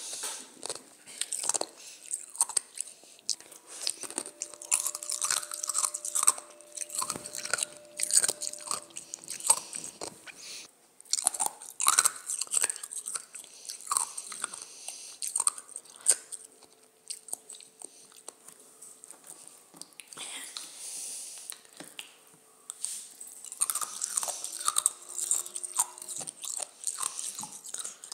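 Ice being bitten and crunched between the teeth close to the microphone, a dense, irregular run of sharp cracks and crunches with short pauses between bites.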